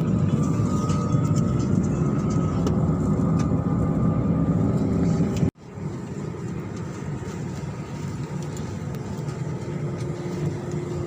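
Steady low rumble of a vehicle in motion. About five and a half seconds in it cuts off abruptly and comes back a little quieter.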